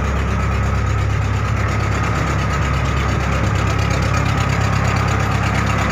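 Boat engine running steadily while underway: an even low drone with a thin steady whine above it.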